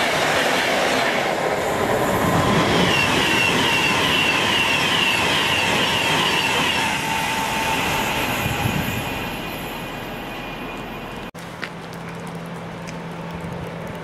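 Class 390 Pendolino electric express passing at speed and running away: a loud rush of wheels on rail that fades over several seconds, with a run of short, repeated high squeals in the middle. The noise breaks off about eleven seconds in, leaving a quieter, steady low hum.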